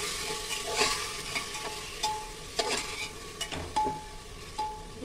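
A steel spatula stirs cauliflower, potato and grated tomato frying in oil in a pressure cooker: irregular scrapes and clinks against the pot, some with a short metallic ring, over a light sizzle. The vegetables are being sautéed.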